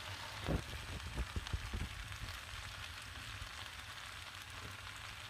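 A wide pan of buttered pizzoccheri with potatoes and cabbage sizzling steadily on the heat, with a run of soft low knocks in the first couple of seconds as cubes of fontina are dropped in.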